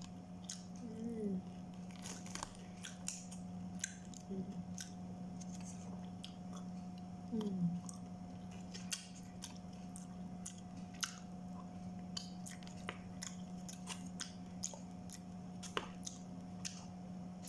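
Chewing and crunching of crispy fried chicken, with many short sharp clicks and smacks scattered throughout, over a steady low electrical hum.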